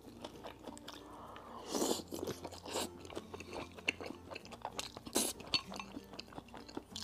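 Close-mic chewing of a fried egg with a crisp-fried white: wet mouth sounds with many small crunches, the loudest about two seconds in and again about five seconds in.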